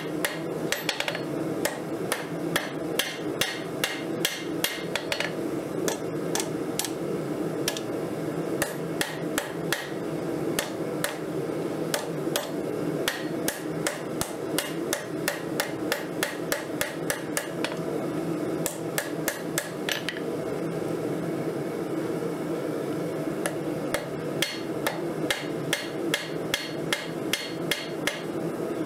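Hand hammer striking a glowing railroad spike of 1080 high-carbon steel on an anvil, forging out a knife blade: a steady run of sharp blows, about two to three a second, over a constant low background hum.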